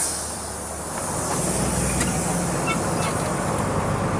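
Turbocharged diesel engine of a Volkswagen 17.230 EOD bus running under way, its low drone strengthening about a second in as it pulls. A hiss at the very start fades within the first second.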